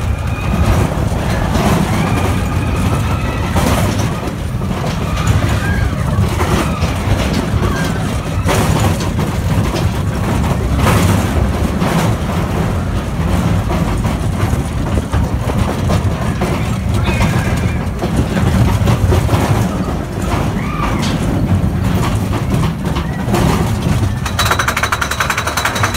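Mine-train roller coaster running on its track, a steady low rumble with wheel rattle and clatter. Near the end a rapid, even clacking starts as the train engages the lift hill chain and its anti-rollback ratchet.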